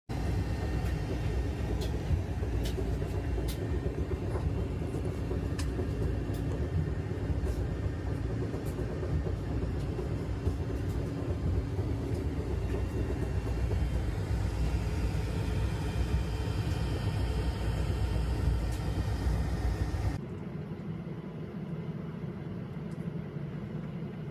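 3D printer running: a steady low rumble and hum with scattered light clicks, dropping to a quieter hum about 20 seconds in.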